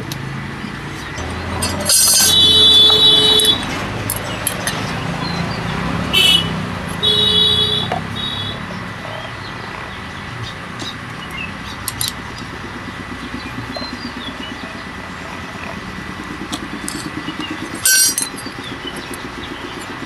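Background of passing vehicles, with two loud tonal blasts a few seconds apart near the start and a few light metal clinks as motorcycle clutch parts are handled.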